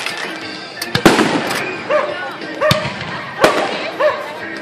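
Aerial fireworks going off overhead: about five sharp bangs, roughly one a second, as the shells burst.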